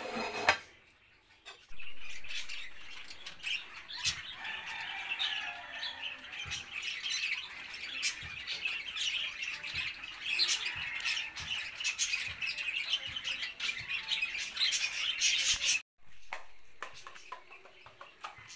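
Birds squawking and chirping in a dense, busy chorus that cuts off suddenly near the end.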